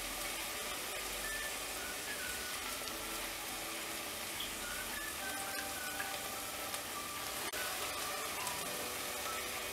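Chicken and onion-tomato masala sizzling low and steadily in a pressure cooker pan while soaked rice and moong dal are added on top.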